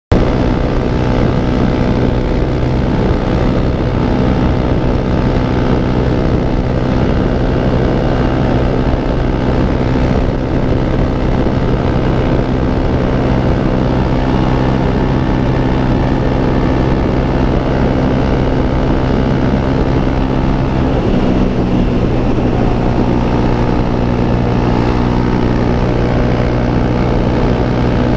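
An engine running steadily at constant speed, with a slight shift in tone about 21 seconds in.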